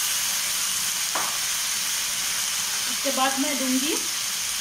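Mushrooms and vegetables sizzling in a hot frying pan just after a splash of vinegar, a steady hiss with a single click about a second in. A woman's voice is heard briefly about three seconds in.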